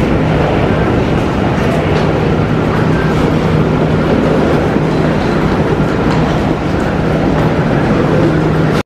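Loud, steady rumble of wheeled suitcases rolling over a hard terminal floor, with faint clicks and a low steady hum underneath.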